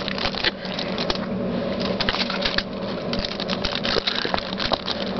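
Close-up crinkling, rustling and irregular clicking of hands working tin foil, wire and tape on a piece of cardboard.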